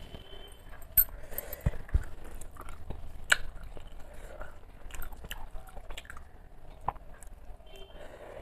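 Close-up chewing and wet mouth sounds of a person eating rice and fish curry by hand, with scattered sharp clicks and smacks.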